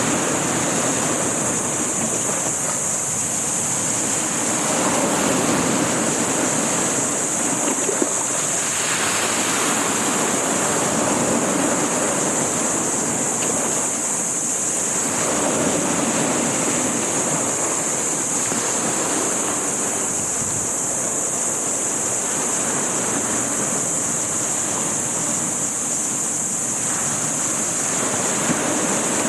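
Sea surf washing and breaking in repeated swells every few seconds, with wind on the microphone and a steady high hiss.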